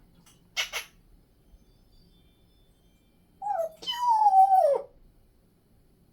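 African grey parrot making a brief hissing sound, then two whining calls that fall in pitch, the second longer, about three and a half seconds in.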